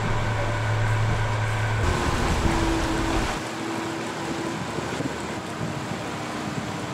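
Glass-bottom boat's motor running with a steady deep drone under a hiss. About three seconds in the deep drone drops away, leaving a lighter hiss and a faint steady whine.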